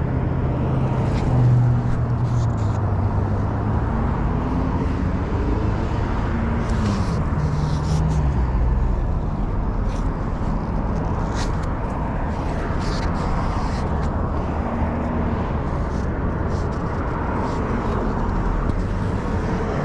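Road traffic passing close by: a steady wash of tyre noise with the low hum of car engines rising and falling as vehicles go by.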